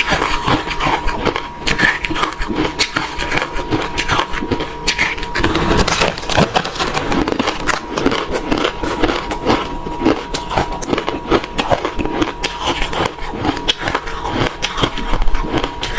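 Refrozen crushed ice being bitten and chewed close to the microphone: a dense, continuous run of crunches and crackles.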